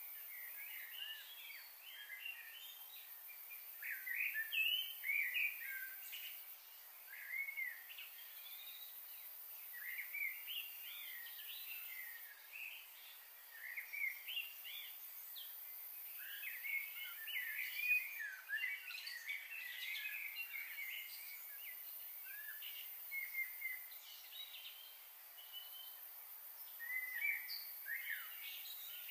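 Several small birds chirping and twittering, a busy stream of short calls and quick rising and falling notes that comes and goes in loudness.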